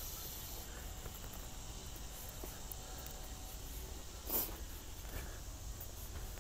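Quiet outdoor ambience: faint, irregular high insect chirps over a steady low rumble and hiss, with a single brief rustle about four seconds in.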